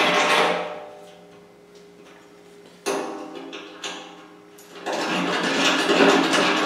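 Hand deburring tool scraping the burrs off freshly drilled holes in a steel tractor loader bucket: scraping up to about half a second in, a quieter gap, a sudden scrape about three seconds in, then steady scraping again from about five seconds.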